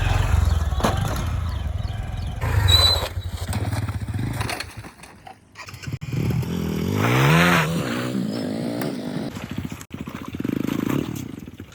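A motor vehicle engine running, its pitch rising and then falling once about seven seconds in, with some clatter.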